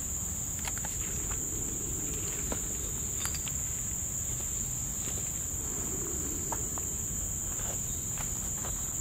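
Steady high-pitched insect chorus, one unbroken buzzing tone, with a few faint crackles of dry leaf litter now and then.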